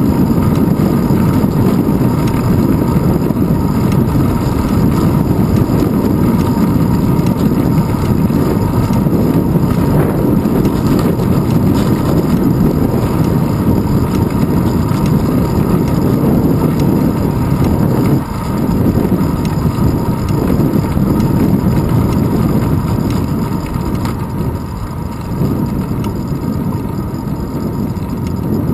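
Wind rumbling over a handlebar-mounted GoPro's microphone on a moving bicycle, mixed with tyre and road noise, a steady loud low rush. It eases off a little near the end.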